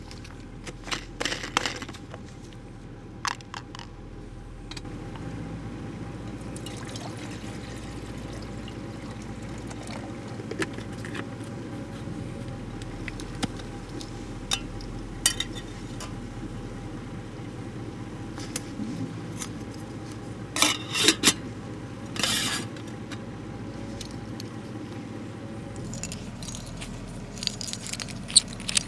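Scattered light clicks and clinks of small objects being handled over a steady low hum, with a few louder rattling bursts about three-quarters of the way through.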